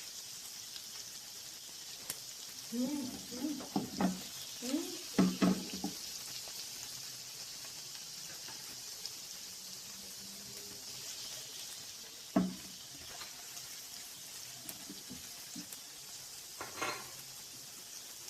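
Chopped onion sizzling steadily in hot oil in a saucepan while being stirred, with the spoon knocking and scraping against the pan now and then. The onion is being lightly sautéed over medium heat until it turns pinkish.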